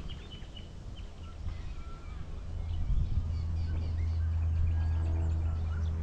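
Small birds chirping, then the steady drone of a plane's engine that builds up from about halfway through and grows louder.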